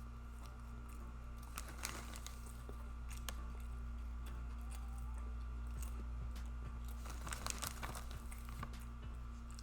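Close-miked eating: chewing with scattered crackles and crinkles, in bunches about two seconds in and again around seven to eight seconds, over a steady electrical hum.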